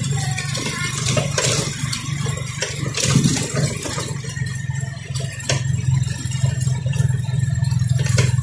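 Motorcycle engine running steadily at low road speed, with scattered rattles and knocks as the bike jolts over a rough, stony dirt road.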